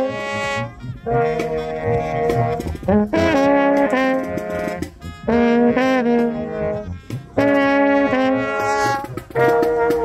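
Small marching-band brass section of trumpets, trombone and a marching horn playing loud held chords together, in short phrases of about two seconds split by brief breaks.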